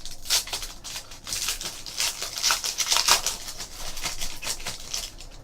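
Foil trading card packs (Panini Crusade basketball) being torn open and handled: dense, irregular crinkling and rustling of the wrappers and cards.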